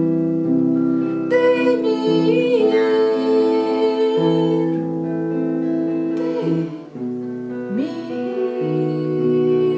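A woman sings long held, wavering notes over acoustic guitar chords.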